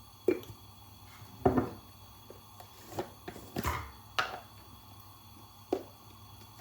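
Kitchenware clatter: a spoon and containers knocking together, about six separate knocks spread across a few seconds.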